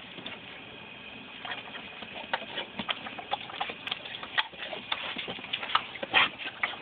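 Garden hose spray nozzle hissing while a German shepherd bites at the water jet, its jaws snapping and the water spattering in quick, irregular clicks that come thicker from about a second and a half in.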